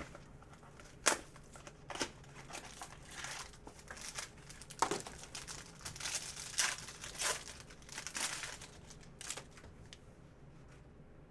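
Trading card packaging crinkling and tearing in the hands, a series of irregular sharp crackles that starts about a second in and dies away near the end.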